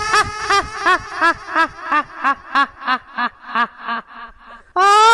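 A high-pitched cackling laugh: a held opening note, then a string of 'ha-ha-ha' pulses about three a second that slowly fade away. A second laugh starts loudly near the end.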